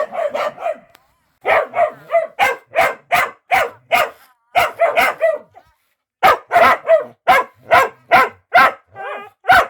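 Dog barking repeatedly, in quick runs of short barks with brief pauses between the runs.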